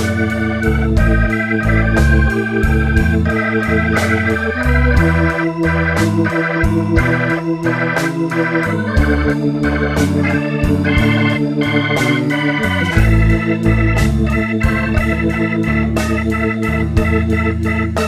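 Background music: an organ-led instrumental with a moving bass line and a steady beat.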